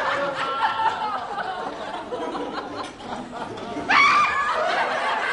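Studio audience laughing, many voices at once, with a sudden louder swell of laughter about four seconds in.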